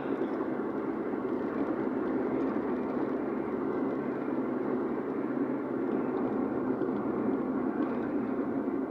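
Car driving along at a steady pace, its engine and road noise making a continuous, even rumble.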